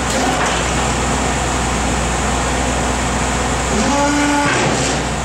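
Vehicle engine running steadily with a low, even hum, and a brief pitched tone about four seconds in.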